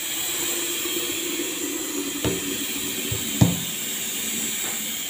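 Steady hiss of a pot of lentils boiling on an electric hob. Two sharp knocks about two and three and a half seconds in, the second louder, as a plastic jug is picked up.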